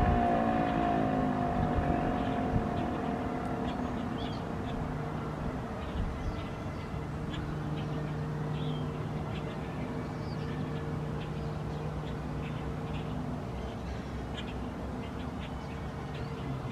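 Federal Model 2 electro-mechanical siren winding down, its falling wail fading out over the first few seconds. After that there is a steady low hum and scattered bird calls.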